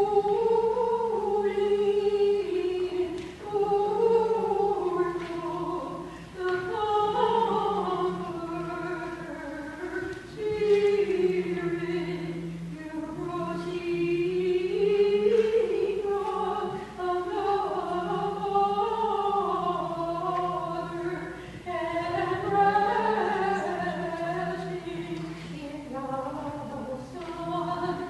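Church choir singing a vespers hymn of the Greek Orthodox service, several voices moving together in long sung phrases with brief pauses between them.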